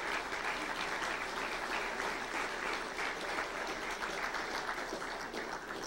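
Audience applauding steadily, a dense patter of many hands clapping that begins to thin out near the end.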